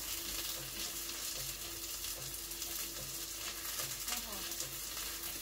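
Food sizzling in a frying pan, a steady crackling hiss.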